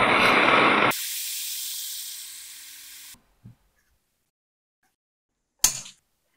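Small handheld gas torch flame rushing loudly as it heats a stuck fitting, dropping after about a second to a quieter hiss that fades out over the next two seconds. A single sharp metal knock near the end.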